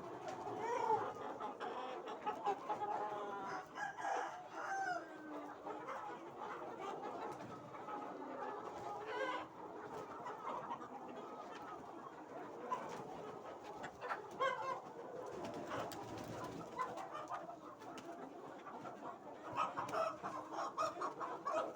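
A flock of country chickens (aseel cross-breed) clucking and calling continuously, with roosters crowing among them.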